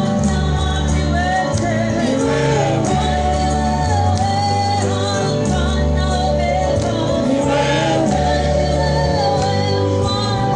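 Swahili gospel music: voices singing a melody over a steady beat and a repeating bass line.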